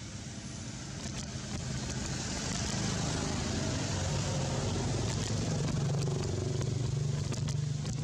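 A motor vehicle going by, a low engine rumble with road noise that builds about a second in, stays loud through the middle and eases off near the end.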